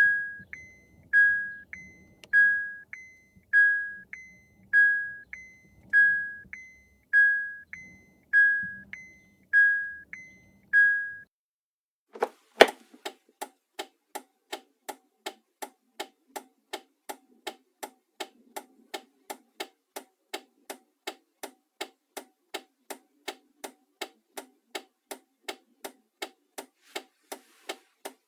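A car's electronic warning chime, a two-note tone with the lower note dying away, repeating about once a second for some eleven seconds. It stops, and after a sharp click a turn-signal indicator starts ticking evenly, about three ticks a second.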